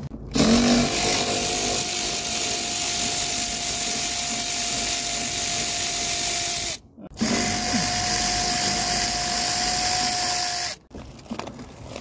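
Cordless electric ratchet running with a steady whine, spinning out a seat-track bolt. It runs in two long spells of about six and four seconds, with a brief stop between them.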